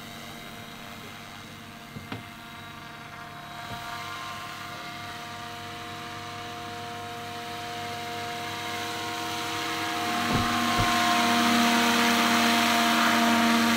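Radio-controlled scale model Bell UH-1N twin Huey helicopter in flight: a steady whine of rotor and drive, growing much louder as it comes close, with a couple of brief knocks about two seconds in.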